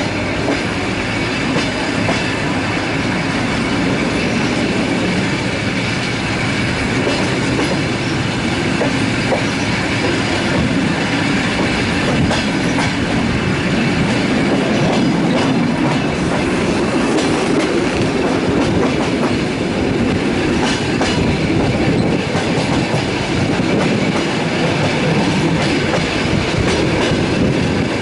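Passenger train running on the line, heard from on board: a steady rumble of wheels on rail with clickety-clack over the rail joints.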